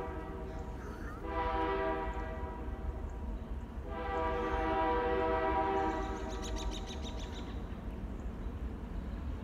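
Freight locomotive horn sounding two long blasts: the first fades out about four seconds in, and the second, louder one runs from about four to six seconds in. A steady low rumble lies beneath.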